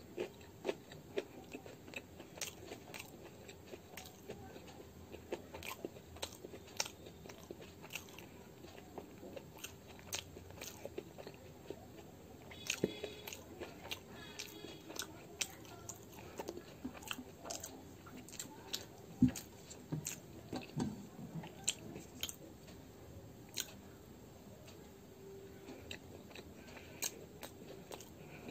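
Close-up chewing of a mouthful of gobhi paratha (cauliflower-stuffed flatbread), with many small sharp mouth clicks and smacks throughout.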